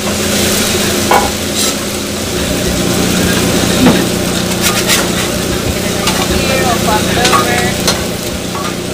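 Shredded brisket sizzling on a steel flat-top griddle, with a metal spatula scraping and clicking against the plate as it turns and chops the meat several times, over a steady low hum.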